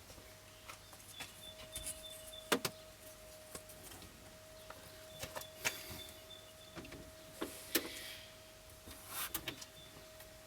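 Scattered clicks and knocks from handling plastic window-vent pieces, over a steady faint hum.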